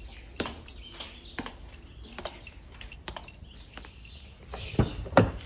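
Footsteps of shoes on tiled and paved ground, a step roughly every half second to second, then two louder thumps near the end.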